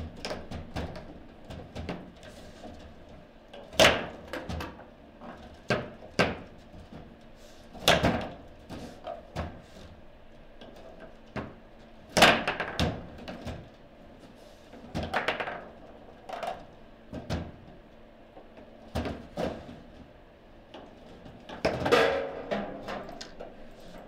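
Table football play: the hard ball being struck by the rod figures and knocking against the table walls, and the rods clacking, in sharp irregular knocks with a few loud shots. A cluster of loud knocks comes near the end.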